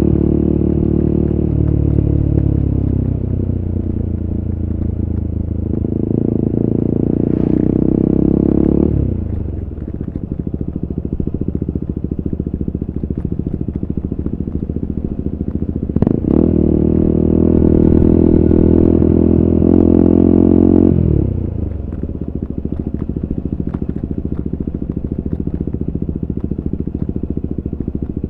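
2022 KTM RC 390's single-cylinder engine running through an Akrapovic exhaust on the road. The engine note falls at first, then twice comes on loud for a few seconds and drops off sharply as the throttle closes. A sharp click comes just before the second loud stretch.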